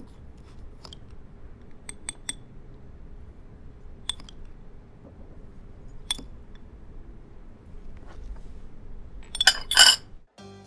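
Metal teaspoon clinking against a small ceramic cup as it is stirred: single bright clinks a second or two apart. Near the end comes a louder quick rattle of clinks as the spoon is set down on the saucer.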